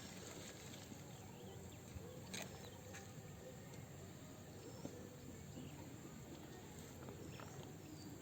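Faint outdoor background sound with a few soft clicks and faint high chirps.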